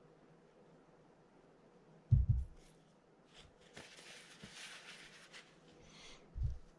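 Bench-work handling noise while servicing a spinning fishing reel: a dull knock about two seconds in and another near the end, with a second or so of hissing rustle and a few small clicks between.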